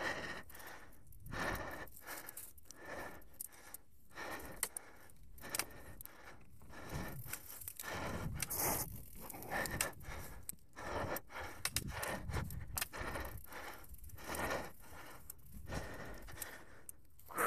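Mountain bike riding a dirt singletrack covered in dry fallen leaves: the tyres crunch and scrape through the leaves in uneven swells, and the rider breathes hard.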